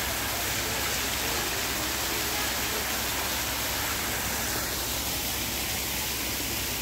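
Small waterfall spilling down a rock face into a pool: a steady rush of falling water.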